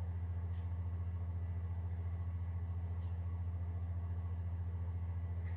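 A steady low hum, even in level throughout, with a couple of faint light ticks.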